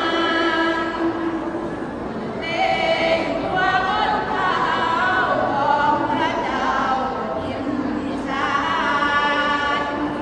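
A women's sarapanya group chanting Thai Buddhist verses in unison, sung in long, drawn-out melodic phrases, with a short break about two seconds in.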